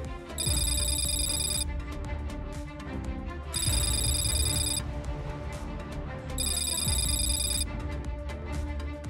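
Background music with a heavy bass, over which an electronic telephone ring sounds three times, each ring about a second long and about three seconds apart.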